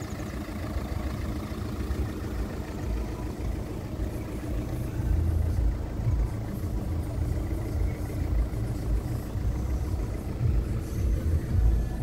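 A steady vehicle engine hum, with uneven low rumbling that swells a few times, like wind on the microphone.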